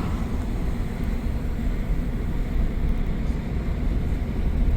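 Steady low rumble of engine and road noise inside a moving vehicle's cabin, driving up a mountain road.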